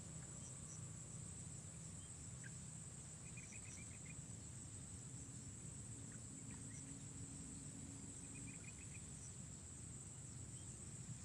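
Steady high-pitched insect drone, with a few short bird chirps and two quick twittering trills, over a low steady rumble.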